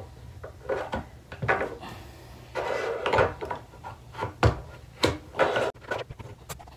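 Plastic figure and its display stand scraping and clicking together as the figure is worked and pressed down onto the stand, with a few sharp knocks.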